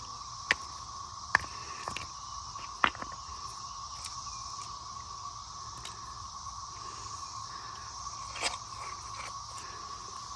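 Cicadas droning steadily, with several sharp knocks, most of them in the first three seconds and one more near the end.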